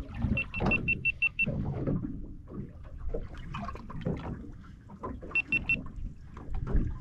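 Water slapping and small knocks on a small fishing boat. A quick run of about eight short, high electronic beeps at one pitch sounds about half a second in, and three more come near the end.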